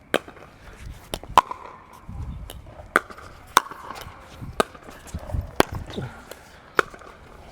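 Pickleball rally: sharp pops of paddles striking the plastic ball, with ball bounces between them, about eight hits at irregular spacing of half a second to a second. Dull thuds of feet on the court come in under the hits.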